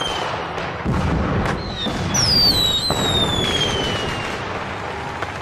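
Fireworks: a rocket's whistle falling in pitch starts about two seconds in, with sharp bangs and crackling bursts around it. The bursts fade out toward the end.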